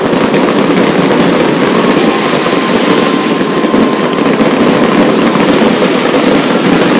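Fireworks finale barrage: aerial shells bursting overhead in a rapid, unbroken string of bangs and crackles.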